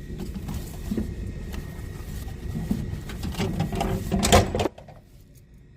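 Vending machine's dispensing motor running, with a clatter peaking about four and a half seconds in, likely the booklet dropping into the tray. The motor stops abruptly just after.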